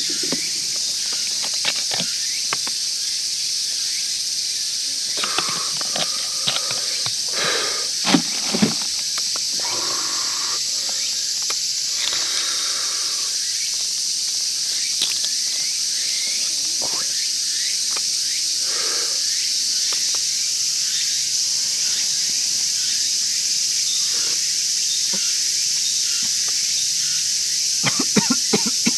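Steady high insect drone, with scattered knocks and clinks of a glass and bottles being handled as a lemon sour is mixed, a cluster of them several seconds in and more near the end.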